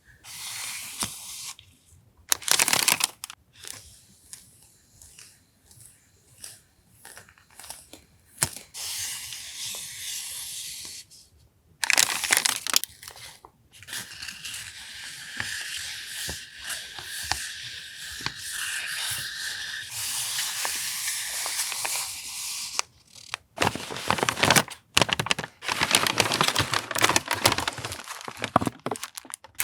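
Paper and plastic stationery packaging being handled and unwrapped: irregular crinkling and rustling, with a long, unbroken stretch of rustling in the middle.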